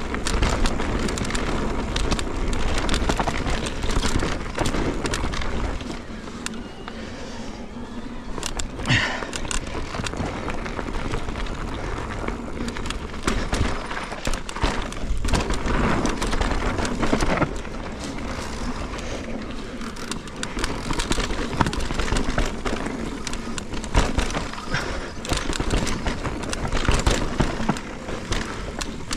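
Mountain bike riding fast down a dirt and loose-stone trail: steady tyre noise with frequent short clatters and knocks from the bike over bumps.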